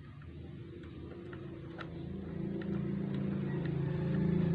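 A motor vehicle's engine running and growing steadily louder as it draws near, with a few faint ticks of a screwdriver on a screw beside the sewing machine's rotary hook.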